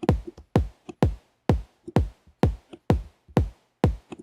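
Electronic drum loop: a kick drum hitting on every beat, a little over two a second, each hit dropping in pitch, with lighter hits in between. It is being played back through a compressor plugin while its settings are compared.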